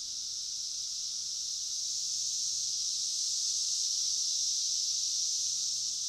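Chorus of 17-year periodical cicadas: a steady, dense high-pitched buzz that swells a little toward the middle.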